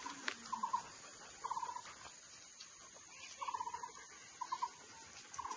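A small animal calling: short rattling chirps, each under half a second and pitched in one place, repeated about six times at uneven intervals over a faint steady outdoor hiss.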